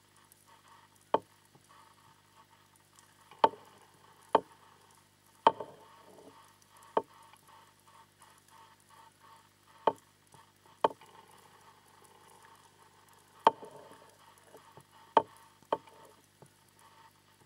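Underwater recording: about ten sharp, irregularly spaced clicks over a faint crackle and a steady low hum.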